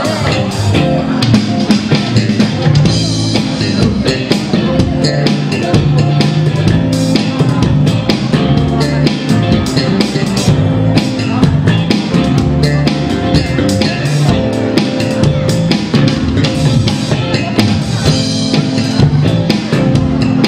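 Live band playing a song: drum kit beating steadily under electric guitar, bass guitar and electronic keyboard.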